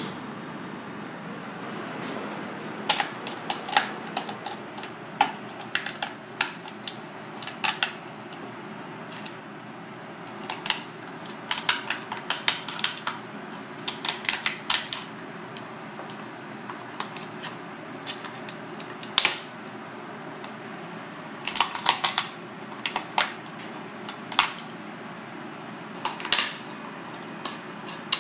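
Kitchen scissors snipping through a cooked crab's hard shell: sharp crunching clicks in irregular clusters of a few at a time, over steady room noise.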